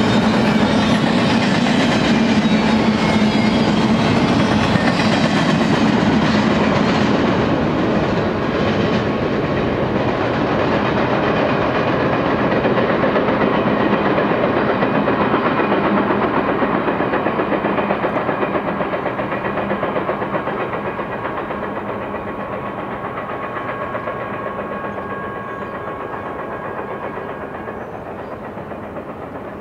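Double-stack intermodal container train's wheels clattering along the rails as its last cars pass and roll away. The sound loses its sharpness about seven seconds in and fades steadily after that.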